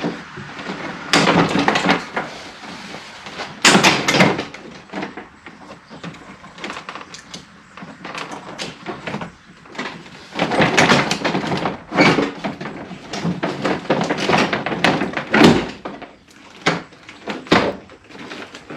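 Plastic interior door panel being worked and pulled off a pickup door: a run of knocks, clicks and rattles, with several louder stretches of scraping and rustling as the panel and its push-in plastic clips come loose.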